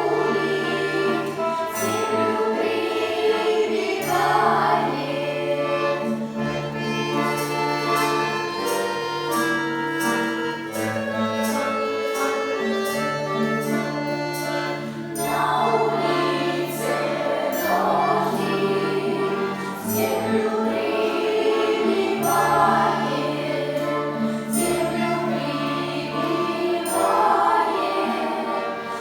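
Russian folk-instrument ensemble playing a folk song: long held chords and bass notes under a melody, with sharp percussive taps throughout.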